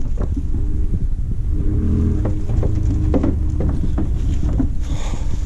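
Pickup truck engine running as it pulls up, a low rumble with wind buffeting the microphone.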